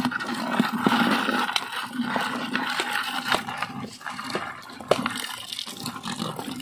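Hot water poured in a steady stream from a kettle into a plastic bucket of live forest crabs (kagang), splashing into the water already in the bucket, with scattered sharp clicks. The crabs are being scalded before cooking.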